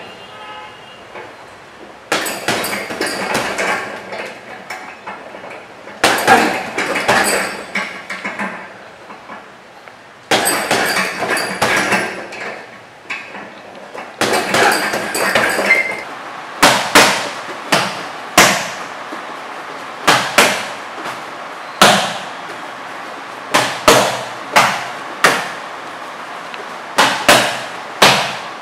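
Gloved punches and elbow strikes landing on a hanging heavy bag in dense bursts. About halfway through these give way to sharp, separate slaps of strikes on hand-held focus mitts in quick groups of about four, one jab-cross-elbow-elbow combination per group.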